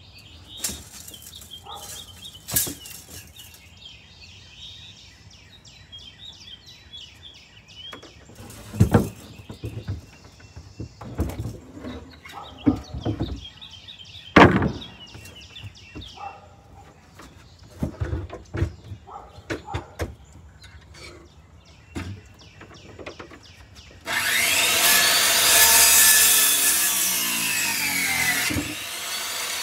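Scattered sharp knocks and small birds chirping. About 24 seconds in, a much louder rush of noise that sweeps in pitch, a vehicle passing close by, which eases off near the end.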